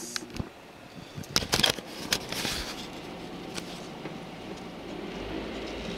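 Rustles and clicks of a hand-held recording device being moved about inside a car, loudest a little over a second in, over the car interior's low steady running hum.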